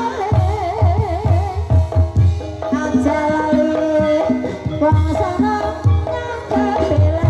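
Music accompanying a Banyumas ebeg hobby-horse dance: a gamelan-style ensemble with repeated low drum strokes under held metallic notes and a wavering, vibrato melody line.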